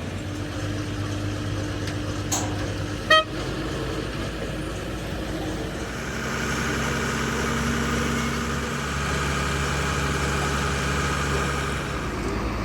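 Engine running steadily, with a short horn toot about three seconds in. The engine grows fuller and louder about six seconds in, then eases near the end.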